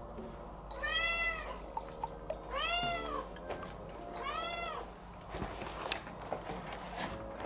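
Scottish fold cat meowing three times, each long cry rising and then falling in pitch. These are plaintive calls from a cat left home alone. A few light clicks follow after the third cry.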